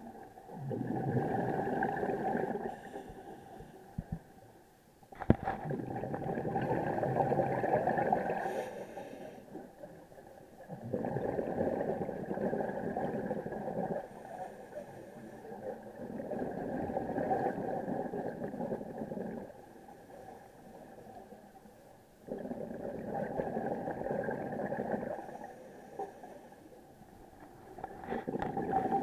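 Scuba diver's breathing on a regulator, heard underwater: a rush of exhaled bubbles lasting three to four seconds, about every five to six seconds, with quieter gaps between as the diver breathes in. A single sharp click about five seconds in.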